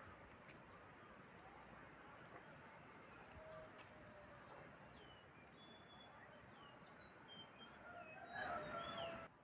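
Quiet outdoor ambience with faint, scattered bird chirps, and a louder stretch of calls about a second before the end.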